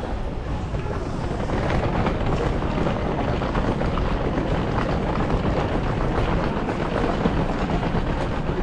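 Steady, rough outdoor noise, heaviest in the low end and flecked with many small ticks, picked up by a camera carried on foot across tiled pavement.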